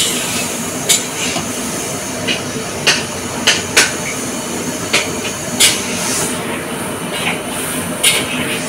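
A steady rushing noise with sharp clicks or clinks at uneven intervals, roughly one a second.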